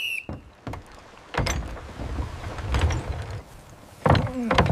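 A short shrill whistle blast, then the low rumbling and knocking of a heavy wooden gun carriage being rolled out for about two seconds. A brief shout comes near the end.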